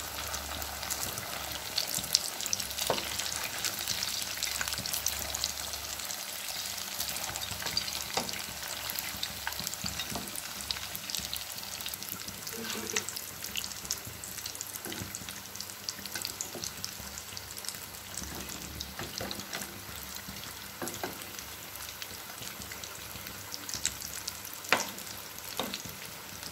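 Batter-coated tapioca balls deep-frying in hot oil, with a steady crackling sizzle and a few sharp clicks, one about three seconds in and one near the end.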